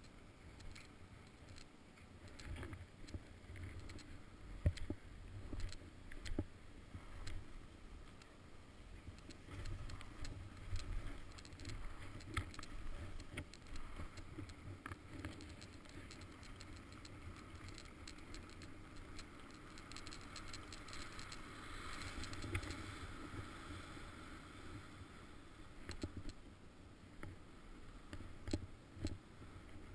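Skis sliding and scraping over groomed snow, heard through a GoPro's housing, with a low wind rumble and scattered small knocks and clicks. The scraping grows louder for a few seconds about twenty seconds in.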